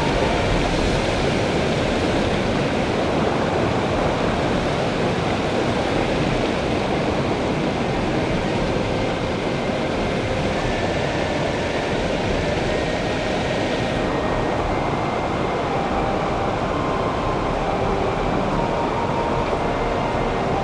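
Steady rushing of river water, a loud, even noise with no break; its high hiss softens about two-thirds of the way through.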